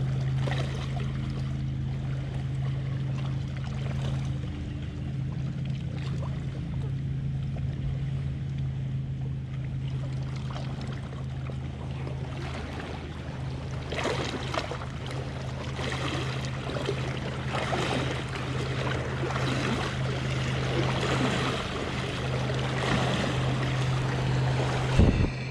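Steady low drone of a motorboat engine out on the lake, with small waves lapping and splashing against the rocky shoreline, the splashing growing busier from about halfway on.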